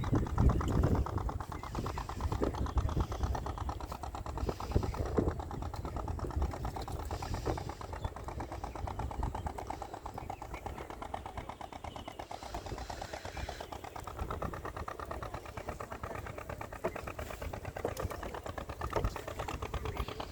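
Small boat engine running steadily with a fast, even chugging, with a few louder knocks in the first seconds.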